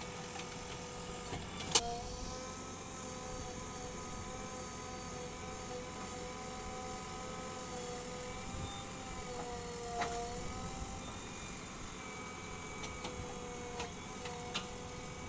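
A JCB 3DX backhoe loader's diesel engine and hydraulics run with a steady whine while the backhoe arm digs and swings, the pitch sagging briefly about ten seconds in as it takes load. A sharp knock sounds about two seconds in, and a few lighter clicks come near the end.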